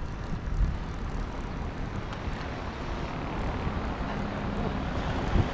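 Wind and road noise while riding a bicycle: a steady rush over a low rumble, with no distinct events.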